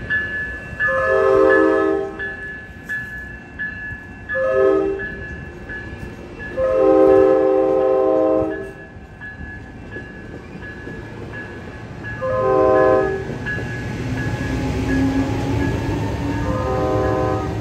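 Locomotive multi-chime air horn sounding a series of long and short blasts, each a chord of several notes, over a steadily pulsing grade-crossing bell. The rumble of the train rises in the last few seconds as it draws near.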